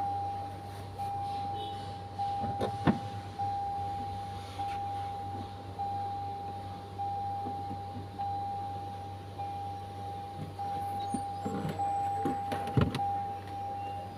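Car's warning chime repeating, a steady mid-pitched beep that sounds again about every 1.2 seconds, over a low hum. A couple of sharp knocks, near 3 seconds and near 13 seconds.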